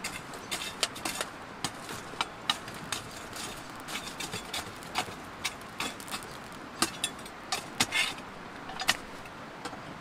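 A metal fire tool knocking and scraping through burning wood and coals in a steel fire pit, an irregular run of sharp clinks and knocks, with the loudest hits in the last few seconds.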